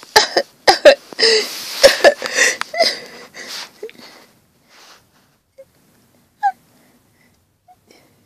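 A child's breathy wheezing and gasping vocal noises, mixed with a few sharp clicks, lasting about four seconds, then only a few faint small sounds.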